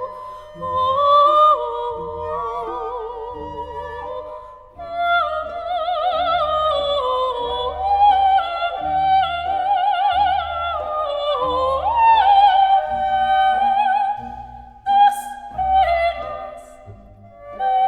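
Background music: a high female operatic voice or vibrato melody over a steady bass pulse.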